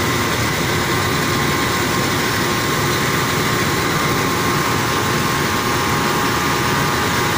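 Rice mill machinery running steadily while milling sun-dried palay into rice: a constant loud mechanical drone with a steady whine on top.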